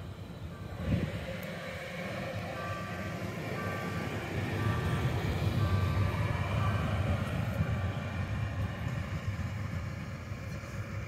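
Citylink tram-train pulling away, a low running rumble that grows louder and then fades as it moves off, with a thump about a second in. A repeated two-tone beeping sounds over the first half.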